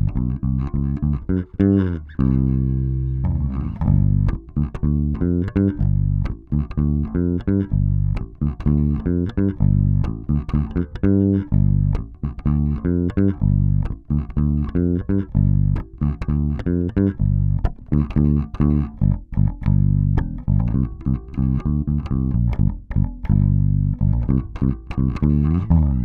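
German-made Warwick Corvette Standard five-string bubinga bass played with the fingers in a busy, continuous line of low notes, with one note held about two seconds in. The tone controls sit at the middle and the pickups are blended evenly, which gives the round tone the player likes best.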